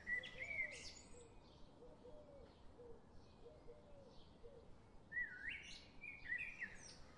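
Birds singing: a short burst of quick rising and falling whistled notes at the start and another about five seconds in, with fainter low repeated notes in between.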